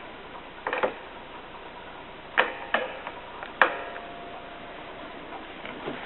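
Metal clicks and knocks from a bookbinding press being handled: a few quick clicks, then two sharper knocks, and a louder clank near the middle that rings briefly.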